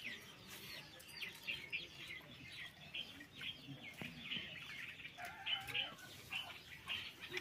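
Domestic chickens clucking, with many short, high chirps repeating throughout and a lower call about five seconds in.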